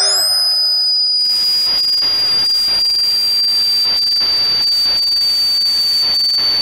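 A sound-design effect: a sharp rising sweep settles into a loud, high-pitched steady ringing tone that holds throughout. From about a second in, a hiss of flickering, crackling static runs beneath it.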